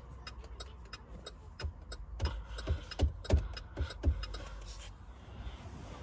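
Car turn-signal flasher ticking evenly, about four clicks a second, fading out near the end. A few low thumps come in the middle.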